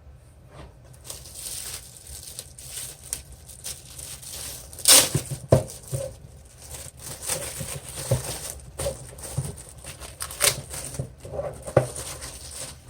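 Plastic packaging crinkling and rustling as it is handled and pulled open, with several sharper, louder crackles among the steady rustle.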